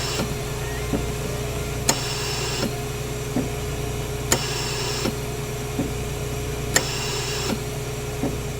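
Small electric motor running steadily with a hum and a held mid tone, punctuated by a sharp click about every two and a half seconds, with fainter ticks in between.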